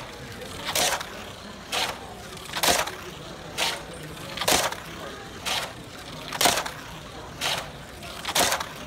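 Hot Wheels Sizzlers toy car lapping an oval plastic track at full speed, giving a short loud whoosh each time it passes, about once a second.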